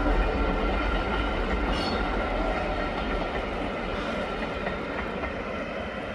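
The Jacobite steam train rolling along the track as it pulls away, the sound slowly fading.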